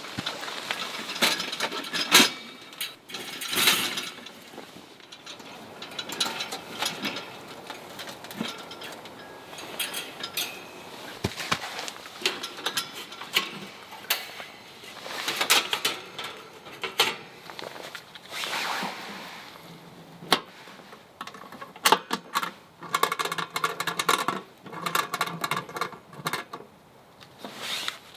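Camping gear being handled: irregular clicks, knocks and rustling, with a run of rapid rasping strokes about three-quarters of the way in.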